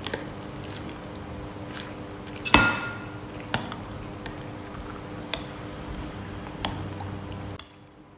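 Metal spoon stirring peanuts through a thick coconut-milk and yogurt mixture in a ceramic bowl: wet sloshing with scattered clinks of spoon on bowl, the loudest a ringing clink about two and a half seconds in.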